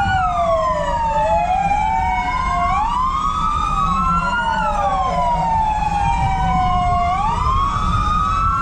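Several fire brigade vehicle sirens wailing at once, their slow rising and falling tones overlapping out of step, over a low steady rumble.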